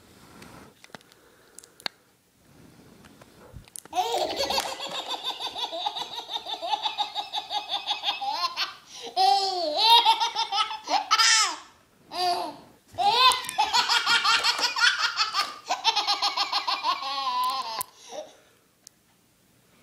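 A baby's belly laugh: long runs of rapid, high-pitched laughter starting about four seconds in, breaking off a few times for breath, with squeals that swoop up and down in pitch.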